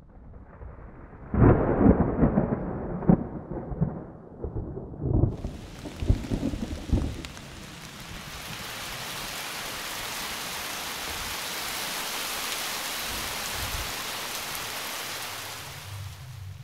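A thunderstorm: several loud thunder cracks and rolling rumbles over the first seven seconds. About five seconds in, heavy rain starts as a steady hiss that carries on and fades near the end.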